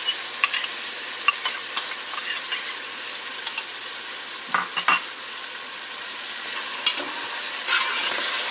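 Onion, garlic and spices frying and sizzling in oil in a pot with yogurt just stirred in, a steady hiss that swells a little near the end. Stirring taps and scrapes against the pot sound through it, with two sharper knocks about halfway.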